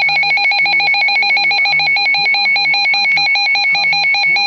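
Electronic emergency alert tone for a severe thunderstorm warning: a loud, rapidly warbling beep that repeats many times a second over a voice talking faintly underneath.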